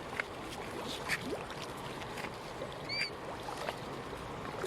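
Steady noise of moving water with a few faint knocks and one short high squeak about three seconds in.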